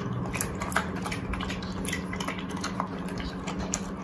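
A Rottweiler eating wet food from a steel dog bowl: quick, irregular chewing and lapping smacks with light knocks against the bowl, over a steady low hum.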